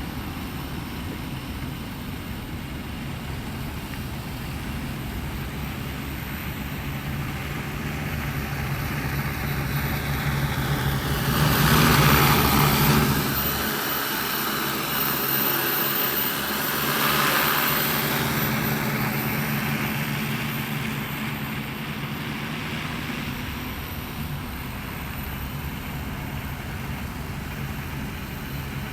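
A multirotor agricultural spraying drone's propellers hum steadily as it flies. The hum swells as the drone passes close about twelve seconds in and again around seventeen seconds, then fades as it moves away.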